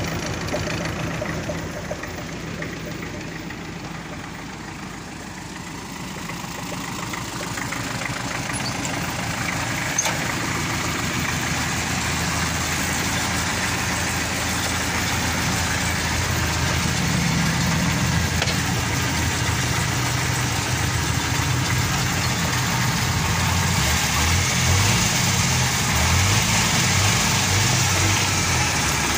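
MTZ-52 tractor's four-cylinder diesel engine running steadily at idle, gradually getting louder over the first half.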